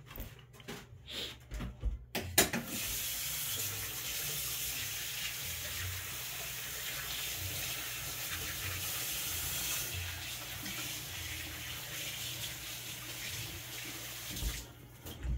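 Kitchen tap running steadily for about twelve seconds, after a few light knocks and clicks at the start; a couple of thumps near the end.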